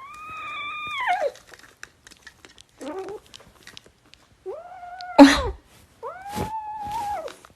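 A cat meowing in long, drawn-out calls that rise and then fall in pitch: three long meows and one short one. A loud thump about five seconds in cuts across the third meow.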